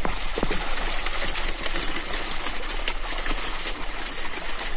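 A net packed with fish thrashing at the water's surface: dense, continuous splashing with many sharp slaps and spatters.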